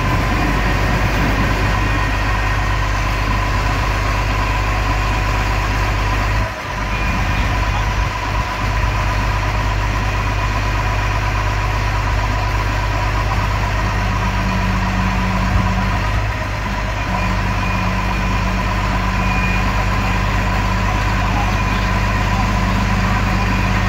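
Heavy truck's diesel engine idling steadily, with one brief drop in level about six and a half seconds in.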